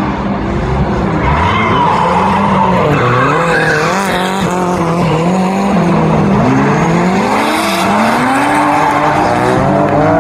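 Several drift cars sliding in a tight pack, their engines revving up and down on the throttle over continuous tyre screech.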